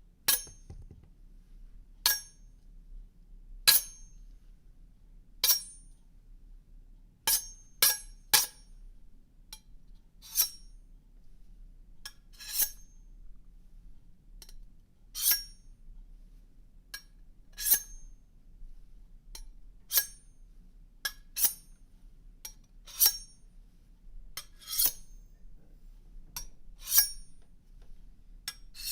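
Steel knife blade making short, bright metallic scrapes and clinks against metal, about eighteen of them at an uneven pace of one every one to two seconds, each with a brief ring.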